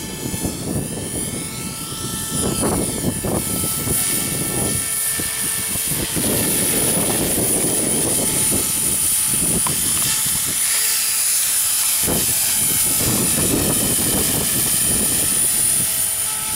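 Small battery-powered radio-controlled helicopter in flight, its electric motor and rotors giving a steady high whine. Uneven low rumbling runs underneath.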